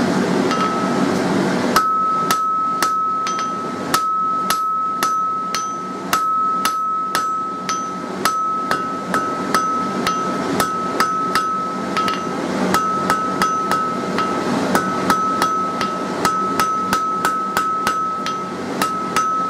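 Hand hammer striking hot mild steel on an anvil, drawing out a bar: steady blows about two a second, starting about two seconds in, with the anvil ringing between strikes.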